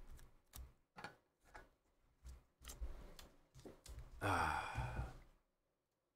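A man drinking water: a few short soft knocks and swallows, then a voiced sigh, an 'ahh' lasting about a second, about four seconds in.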